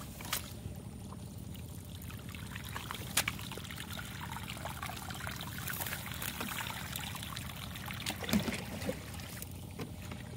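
Water pouring steadily into a rat burrow in a field bank, flooding it to drive the rats out; the burrow is not yet full. A couple of sharp clicks stand out above the flow.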